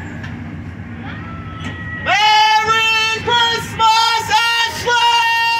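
Train horn sounding from about two seconds in, a run of loud blasts with short breaks between them, over a low rumble.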